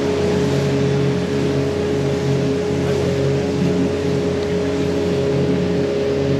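Water taxi's engine running steadily while under way, heard from on board: a constant hum with a steady tone, over an even hiss.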